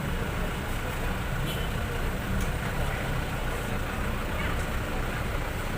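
Steady street traffic noise with a motor vehicle engine running, a continuous low rumble.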